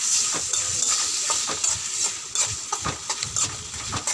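Chicken pieces and masala paste frying in hot oil in a pan, a steady sizzle. A spatula stirs and scrapes against the pan with repeated short clinks and scrapes.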